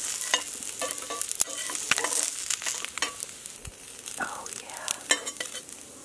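Ham and bread frying in a pan over a campfire: a steady sizzle with many scattered crackles and pops.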